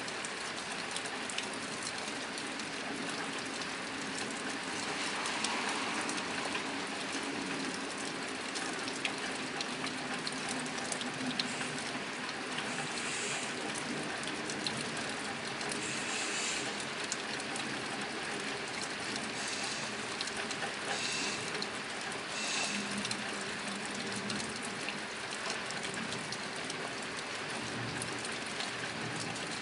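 Steady rain falling on a tin roof: a dense, even patter of drops striking the metal.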